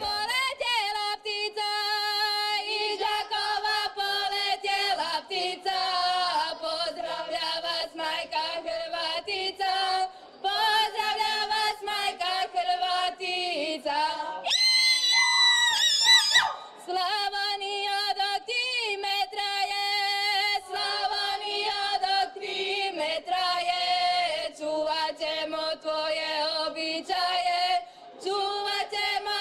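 A group of voices singing a bečarac, a Slavonian folk song, in long held notes. About halfway through there is a loud, high, rising whooping cry.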